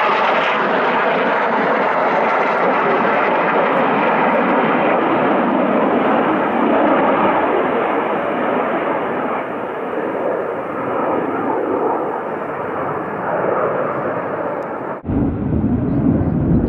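Low-flying fighter jet passing through the valley: steady jet noise that slowly loses its top end and fades a little. About fifteen seconds in it breaks off and gives way to a louder, deeper rumble.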